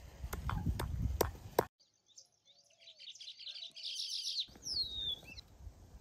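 A wooden pestle pounding on a wooden board, four sharp knocks, then birds chirping and a single falling whistled call.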